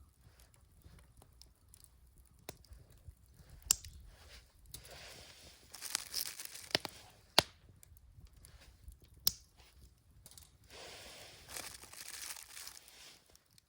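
Crinkling and rustling of something like a paper bag or wrapping being handled, in two stretches, with a few sharp clicks between them.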